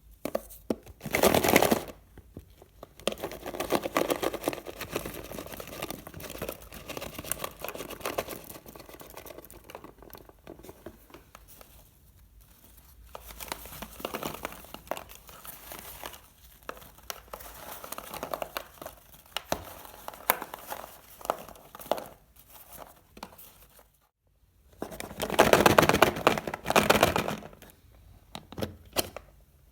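Plastic candy packaging crinkling and rustling as it is handled, in irregular spells, with two louder bouts of crackling, one about a second in and one near the end.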